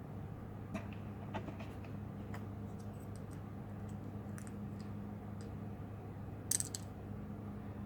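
Small scattered clicks and taps of tools and plastic laptop parts being handled during disassembly, with a louder short scraping click about six and a half seconds in, over a steady low hum.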